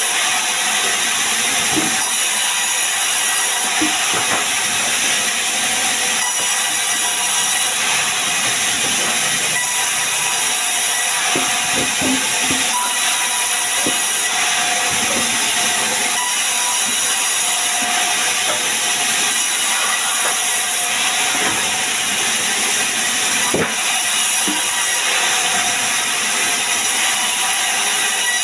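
Sawmill band saw running and cutting lengthwise through a sengon (albizia) log, a loud even hiss, with a few short knocks.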